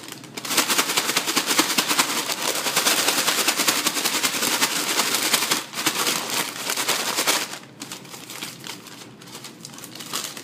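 French fries and a paper bag being shaken hard, a dense rapid rattling and crinkling that starts about half a second in and stops after about seven seconds, followed by a few quieter crinkles of paper.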